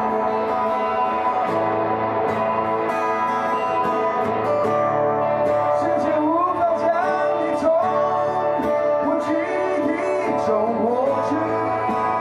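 Live band music: a man singing over guitars, with held chords and gliding melodic lines in the second half.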